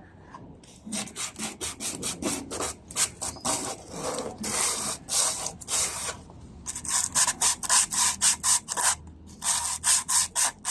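Hand sanding with sandpaper: quick back-and-forth rubbing strokes, a few a second, with a brief pause partway through.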